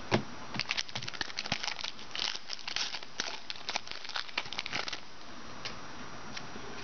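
Trading-card packs and cards handled by hand: the pack wrapper crinkles and the cards are flicked through. It is a dense run of sharp crackles and clicks that thins out to faint ticks about five seconds in.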